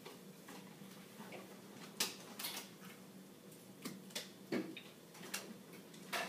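Faint, irregular ticks and rustles of paper cut-out strips being handled on a notebook page, over a low steady hum.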